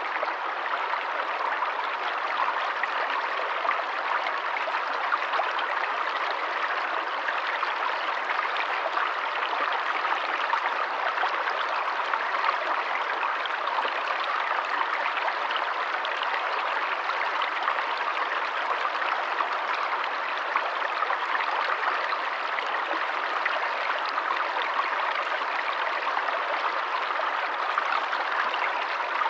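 A stream of water running and babbling steadily over stones, a constant rushing with fine splashing detail.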